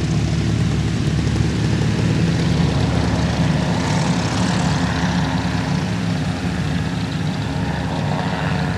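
Aerolite 103 ultralight's engine and propeller droning steadily as the plane flies past. The hiss brightens about four seconds in as it passes closest.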